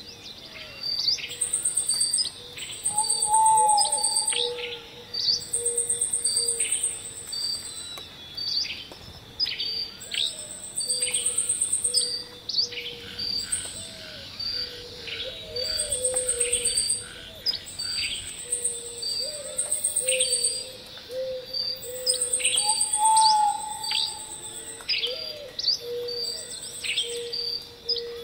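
Many birds chirping and calling, in a mix of short quick chirps and a few clear whistled notes, over a high, pulsing insect-like trill that comes in repeated bursts about a second long.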